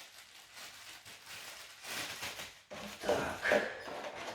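Plastic packaging rustling and parts being handled while a cordless vacuum's accessories are unpacked, loudest about three seconds in.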